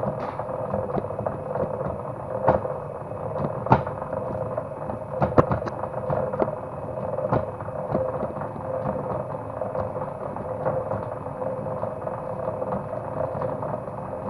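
Motor-driven cable stripping machine running steadily while cable is fed through it, with irregular sharp clicks and knocks over the hum.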